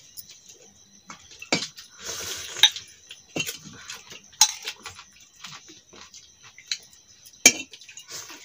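Steel plates and bowls clinking and scraping as people eat rice by hand, with several sharp clinks scattered among softer handling noises.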